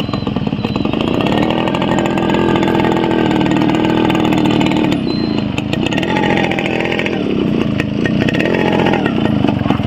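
Yamaha RX two-stroke single-cylinder motorcycle engine running while ridden, with its buzzing exhaust note. The revs rise about a second in, hold steady, ease off around five seconds, then pick up and drop again a couple of times.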